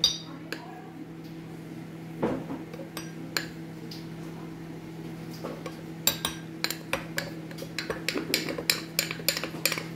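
Metal spoon clinking against a glass jar: a few separate taps as cornflour is spooned in, then from about six seconds in a quick run of clinks, several a second, as it is stirred into the stock in the jar. A steady low hum runs underneath.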